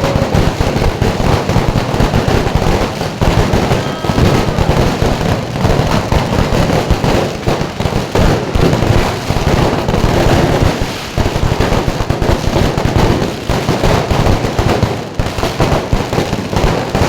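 Fireworks and firecrackers going off in a dense, continuous barrage: many bangs and crackles overlapping with no break.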